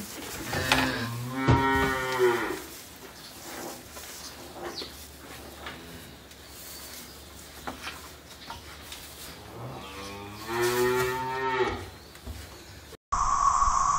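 Dairy calves bawling in a barn pen: one long call about a second in and another about ten seconds in, with faint knocks between. In the last second a steady hiss takes over.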